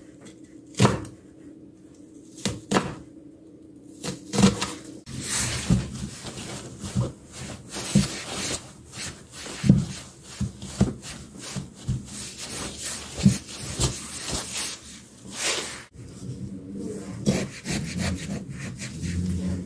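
A chef's knife chopping onion on a wooden cutting board, a few sharp chops. Then a paper towel rubbing and pressing over a stainless steel tray for several seconds, with small knocks. Near the end, a knife cutting cucumber on a cutting board.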